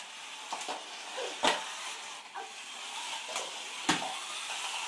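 Small white cups knocked and set down on a hard tiled floor, four short sharp clacks, the second and last the loudest, over a steady hiss.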